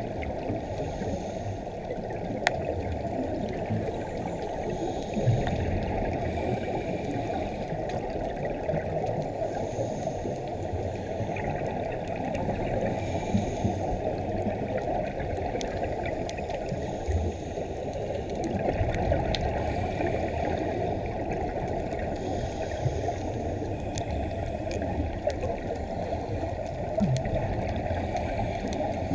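Muffled underwater noise picked up through a GoPro Hero4 Black's waterproof housing on a scuba dive. A faint hiss of exhaust bubbles swells every few seconds, with scattered small clicks.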